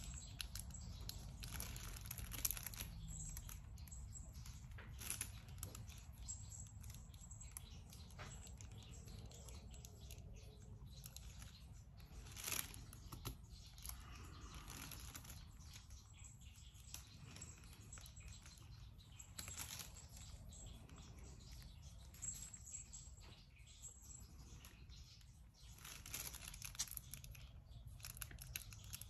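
Faint, scattered small clicks and crinkling from diamond painting: a drill pen picking resin drills out of a tray and pressing them onto the sticky canvas, with the canvas's plastic cover film rustling.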